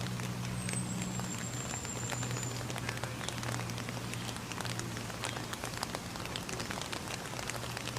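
Rain falling, with many small drops pattering and dripping over a steady low hum.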